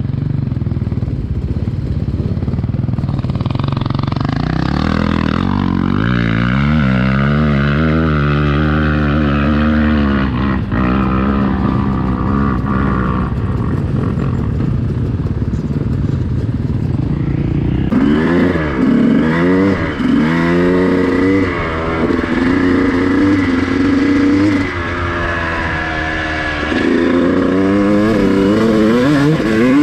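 Two-stroke dirt bike engines revving hard on a hill climb, the pitch climbing and falling. Past the middle, the Honda CR250's two-stroke engine is heard close up, revving up and easing off in repeated surges.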